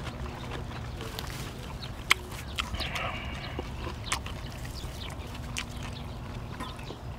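A person eating: chewing and mouth noises, with a sharp click about two seconds in and another about four seconds in. A low steady hum runs underneath.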